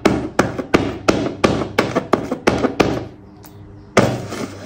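A fast run of sharp taps or knocks, about five to six a second, that stops about three seconds in, followed by a lone knock and then a louder one near the end.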